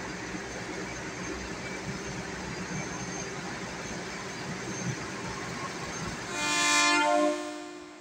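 KAI CC206 diesel-electric locomotive moving with its engine running steadily, then sounding its horn in one blast of about a second, some six seconds in; the horn is the loudest sound and tails off afterwards.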